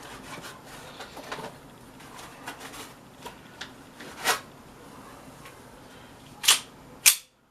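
Rustling and small clicks of an airsoft gas pistol and its packaging being handled, with three sharp clacks: one about four seconds in and two close together near the end.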